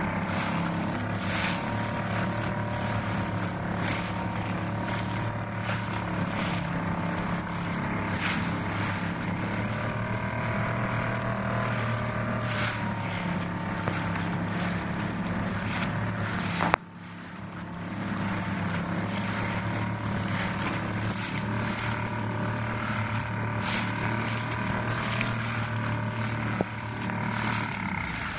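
New Suzuki 2.5 hp single-cylinder four-stroke outboard running steadily under way while being broken in, with choppy water slapping and splashing against the hull now and then. The level drops sharply once about halfway, then builds back within a second.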